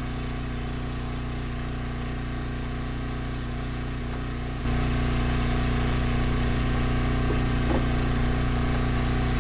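An engine idling steadily. About halfway through it suddenly gets louder and then holds level.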